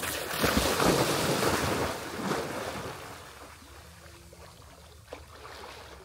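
Two people running into shallow sea water off a pebble beach, with loud splashing for the first two to three seconds that then dies away to a soft wash of water as they wade and swim out.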